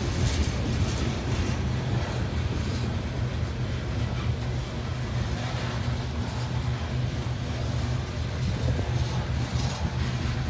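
Coal hopper cars of a freight train rolling past on the rails, a steady low rumble of wheels on track.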